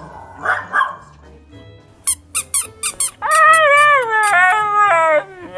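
A small dog barks twice, then comes a quick run of short, sharp high squeaks. Then a husky howls and yowls loudly, its long call wavering and bending up and down in pitch.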